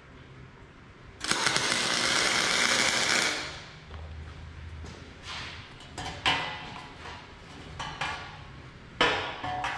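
Electric arc welding on steel horseshoes with a 120 V AC welder: about a second in, a loud, steady crackle and hiss starts as the arc runs along the joint, and it stops after about two seconds. After that come scattered knocks and clanks of the welded horseshoes being handled on a steel welding table.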